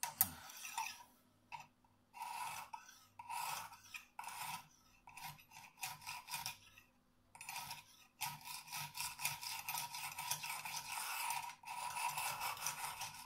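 Lansky coarse diamond hone scraping along a clamped knife's edge, taking off the burr. Separate strokes come about a second apart, then from about eight seconds in a quick run of short back-and-forth strokes.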